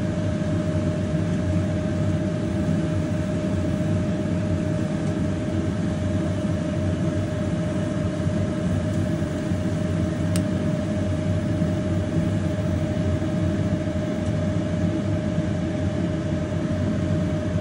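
Gas burner of a Rinnai hob running under a cast-iron wok, drying off the last puddle of rinse water as it boils away: a steady rushing noise with a constant mid-pitched hum.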